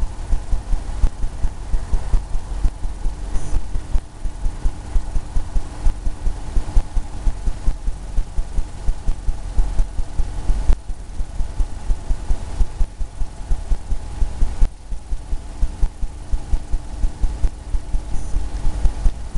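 Paintbrush tapping paint onto a stretched canvas, a rhythmic run of dull thumps about three to four a second, with brief pauses.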